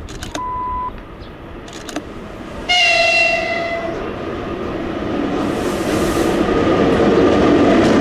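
3ES5K 'Ermak' electric locomotive sounding its horn once, a loud blast of about a second and a half starting about three seconds in. After it comes the growing rumble of the locomotive and its freight train approaching and running past, loudest near the end. A short high beep sounds about half a second in.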